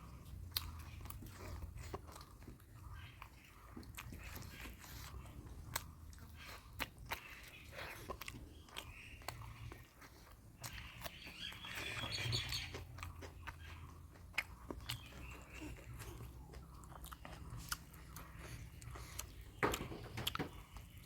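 Close-miked eating: a person chewing and biting mouthfuls of mutton curry, with many sharp clicks and crunches throughout and a louder stretch about twelve seconds in.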